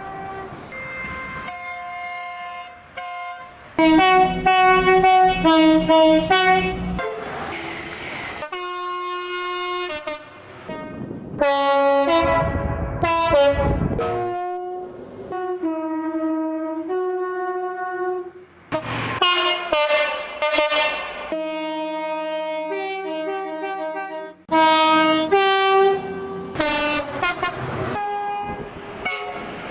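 A string of British train horns, one clip after another: two-tone horns sounding their high and low notes in turn, in short toots and longer blasts, with abrupt cuts between trains. Near the middle, one horn sounds over the rush and rumble of a train passing close by.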